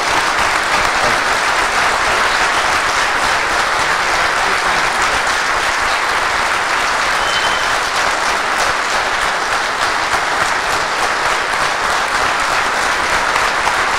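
Audience applauding steadily with the dense, even clatter of many hands clapping, at the close of a speech.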